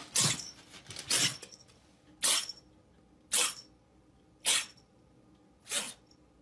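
Grey tabby kitten giving six short, breathy hissing puffs, about one a second.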